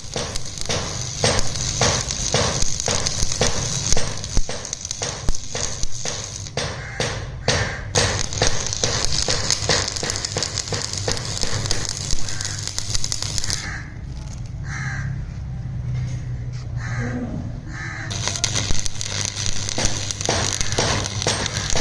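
Repeated sharp metal strikes, about three a second, over a steady low hum, consistent with hammering in a workshop. The strikes thin out for a few seconds in the second half.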